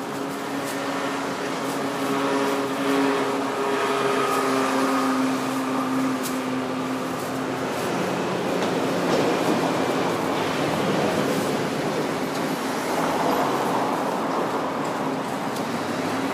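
Iyo Railway suburban electric train running along the track toward a level crossing: steady running noise with some humming tones that fade out in the first half, then noise rising after about eight seconds as the train draws nearer.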